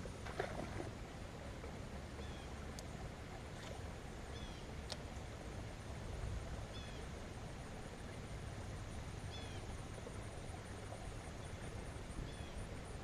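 Outdoor ambience: a bird gives a short high chirp every two to three seconds over a low steady rumble, with a few faint clicks.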